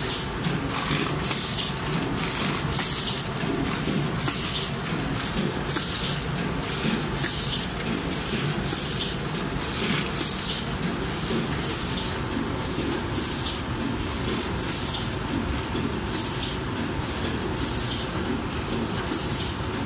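Washing powder packing machine running: a steady mechanical rumble with a short hiss of air repeating evenly, a little more than once a second, with each packing cycle.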